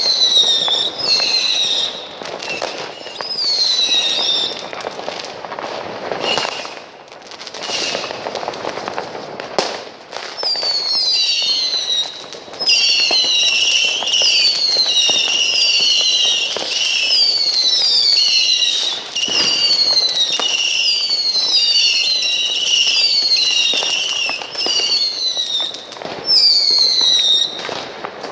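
Fireworks set off at ground level, sending up whistling shots: a long run of falling whistles, about one a second, with a steady high whistle beneath them through the middle and latter part, and a few sharp bangs and crackle in between.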